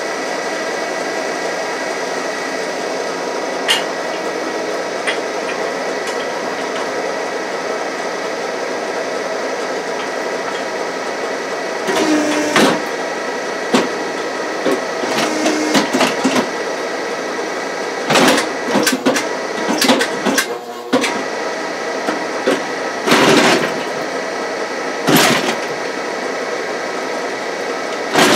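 A hydraulic exoskeleton running with a steady mechanical hum. There is a sharp click about four seconds in, and from about twelve seconds a string of short noisy bursts, some with a low whine, as the solenoid valves switch and the hydraulic arms move with the wearer's arms.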